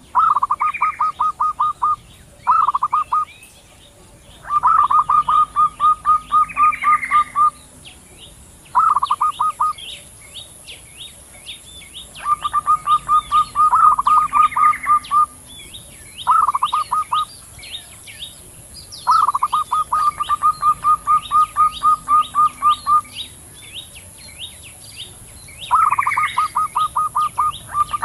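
Zebra doves (perkutut), male and female, calling back and forth: about eight runs of fast, evenly repeated short notes, each run one to four seconds long with short pauses between, over faint quick high chirping.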